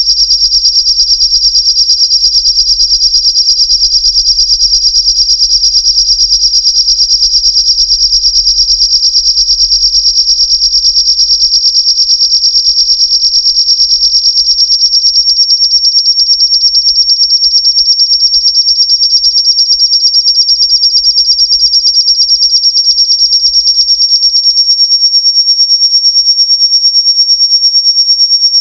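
Loud, piercing electronic tone from a modular synthesizer: several close high-pitched lines held steady over a faint low hum, with a fast, even flutter in loudness.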